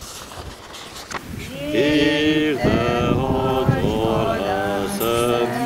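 Voices singing a church hymn, beginning about a second and a half in, with long held notes moving step by step in a slow melody.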